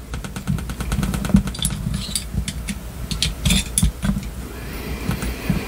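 Small clicks, taps and light rattles of a diecast metal toy-truck cab being handled while its plastic window glazing is pushed out from inside. There is a quick run of fine clicks in the first second, then scattered taps.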